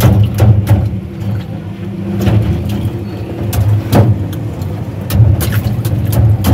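Steel ice pick stabbing and chipping a block of ice in a metal tray: sharp, irregular cracks and clicks, about one or two a second. Underneath, a motor vehicle engine runs steadily.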